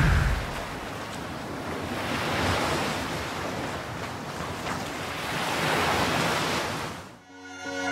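Ocean surf: a steady rush of waves that swells twice, a few seconds apart.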